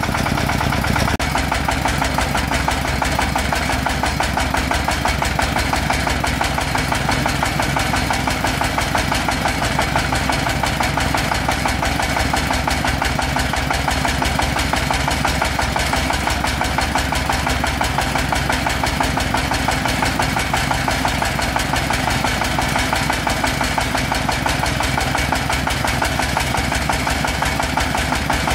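Vehicle engine running steadily at an unchanging speed, with a rapid even beat.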